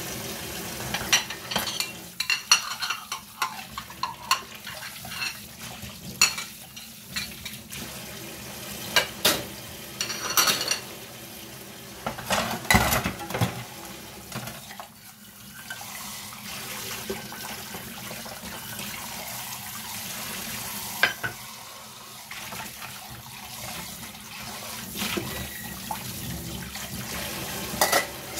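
Kitchen work: utensils, pots and dishes clinking and knocking at irregular moments over a steady background noise.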